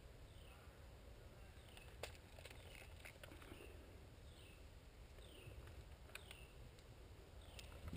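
Near silence with a bird calling faintly, a short falling note repeated about once a second, and one faint click about two seconds in.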